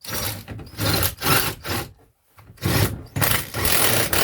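Rough scraping strokes worked back and forth by hand, about seven in quick succession with a short pause about two seconds in.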